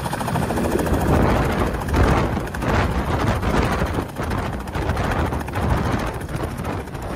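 Small two-bladed tour helicopter settling onto its landing pad, the main rotor beating in a fast, even pulse over the engine's running sound.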